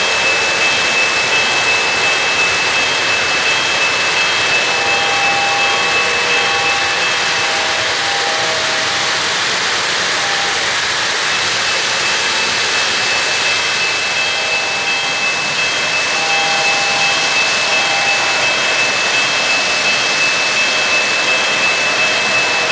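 Three-rail O-gauge model trains running on steel track: a steady rush of wheels on rails with a constant high whine that drops out for a few seconds midway.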